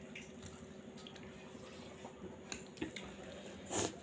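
Close-up wet chewing and lip-smacking of someone eating a mouthful of rice and curry, with scattered small clicks. A brief, louder noise comes near the end.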